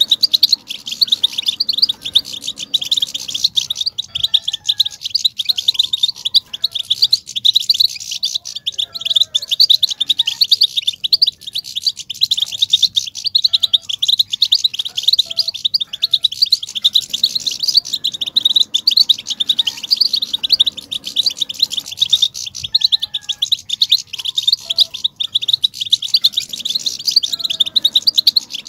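European goldfinches twittering: a dense, unbroken stream of quick high chirps and trills. This is the excited chatter that keepers play to set male goldfinches singing.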